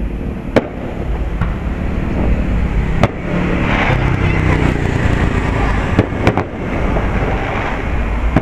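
Aerial fireworks shells bursting: several sharp bangs, the loudest about three seconds in and two in quick succession around six seconds in, over a steady low rumble.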